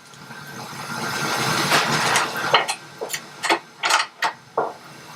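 Metal motorcycle drive chain rustling and clacking as it is worked onto the rear wheel's sprocket. A rising rattle gives way to a quick series of sharp metal clicks.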